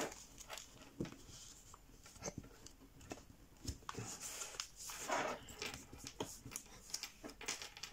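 Sheet of 80 g/m² printer paper rustling and crinkling as an origami model is folded in half lengthwise and its crease pressed flat by fingers against a wooden table: soft, irregular rustles and light taps, a little louder about five seconds in.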